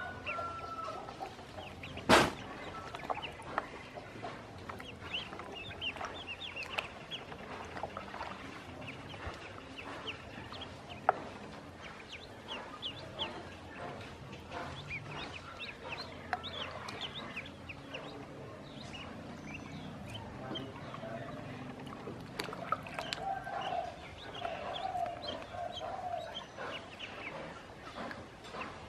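A group of yellow ducklings peeping, a steady stream of short high cheeps, with a sharp knock about two seconds in and another near the middle. A lower, wavering call joins in near the end.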